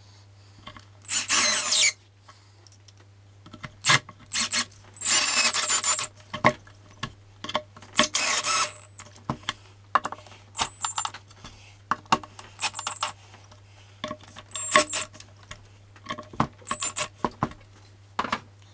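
Hand tools working on a loudspeaker tweeter: three longer scraping or rubbing strokes, about a second in, around five seconds and around eight seconds, with scattered small clicks and taps between them. A steady low hum runs underneath.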